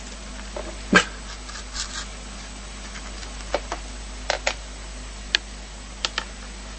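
A dog making short, sharp sounds, about ten of them, mostly in quick pairs. The first, about a second in, is the loudest.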